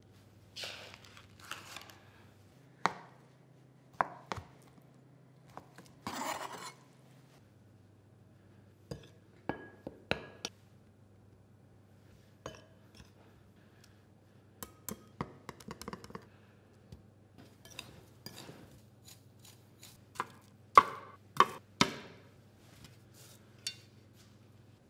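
Food preparation sounds: a packet of smoked tofu rustles open, a knife chops on a board, and tofu cubes are tossed in flour in glass bowls with light clinks of glass. The sounds come as separate taps and knocks, with a quick run of the loudest knocks near the end.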